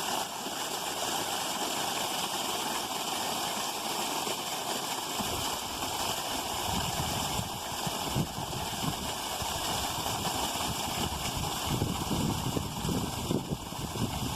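Creek water running steadily, with an uneven low rumble joining in about five seconds in.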